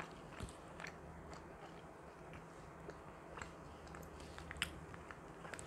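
Faint close-up chewing of a soft chocolate chip cookie, with small scattered mouth clicks, over a low steady hum.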